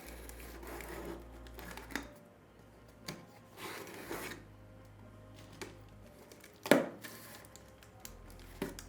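Handling sounds: short bursts of rustling and scattered light clicks, with one sharper, louder click about two-thirds of the way through.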